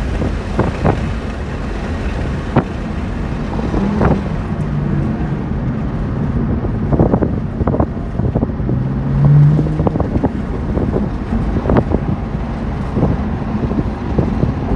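Car being driven at speed on a racetrack: the engine runs under heavy wind buffeting on the microphone, with scattered sharp knocks.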